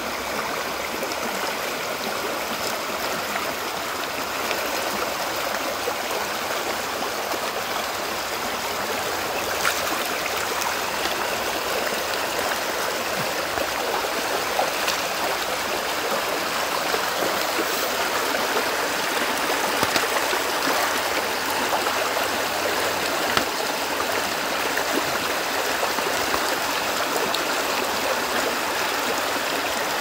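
Forest stream in spate after heavy downpours, rushing and churning over a low step in white water: a steady rush with occasional sharper splashes.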